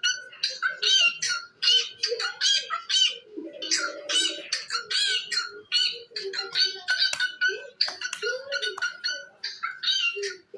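A bird giving short, rough calls in a rapid, uneven run, about two or three a second, with no break.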